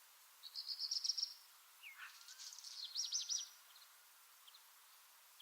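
Songbirds singing in a garden: a rapid high trill about half a second in, then a second phrase of quick sweeping notes, followed by a few faint scattered chirps.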